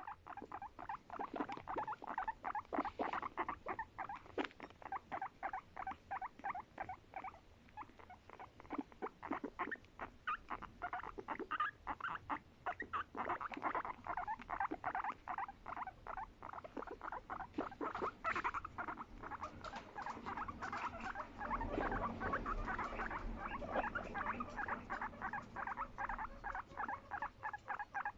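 Guinea pig calling in a rapid run of short repeated notes, several a second, its soft affectionate voice.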